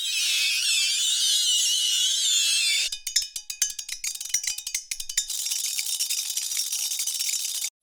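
Extreme-temperature reaction sounds in sequence. First, about three seconds of dense high sizzling full of wavering squeals and chirps. Then a rapid rattling chatter of sharp metallic clicks with ringing tones, then a fine, even high crackling sizzle that cuts off abruptly just before the end.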